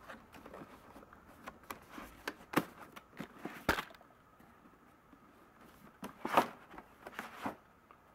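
Paper sleeve rustling as it is slid off a hard plastic carrying case, with irregular clicks and knocks of the plastic case being handled on a table. The loudest knocks come a little under three and four seconds in and again about six and a half seconds in.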